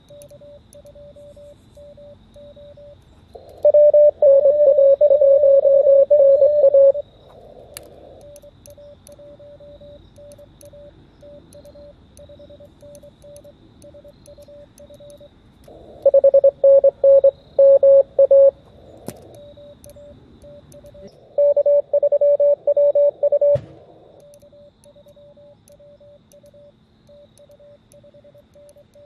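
Morse code from an Elecraft KX2 transceiver's speaker on the 40-metre band: a fainter keyed tone of a received station runs throughout, broken three times, about 4, 16 and 21 seconds in, by much louder passages of the radio's own sidetone as the contest exchange is sent.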